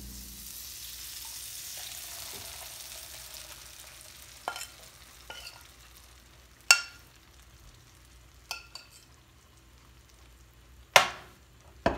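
Yogurt-marinated chicken sizzling in hot butter in a frying pan, loudest at first and fading over the first few seconds. A metal spoon then clinks sharply against the bowl and pan several times as the rest of the marinade is scraped in.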